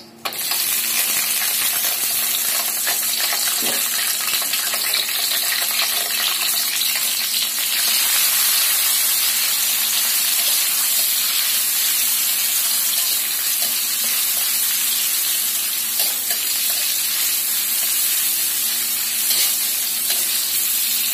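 Chopped shallots, chilli and tomato dropped into hot oil in a wok, bursting into a sizzle that then runs on steady and loud as they fry. A metal spatula scrapes the wok now and then as they are stirred.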